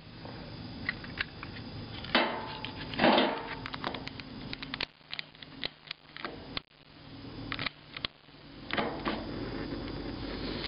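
Handling noises with scattered sharp clicks from a long-nosed butane utility lighter being brought up and triggered. From about nine seconds a steadier hiss with a low rumble as the lighter's flame is held to the pile of smokeless powder.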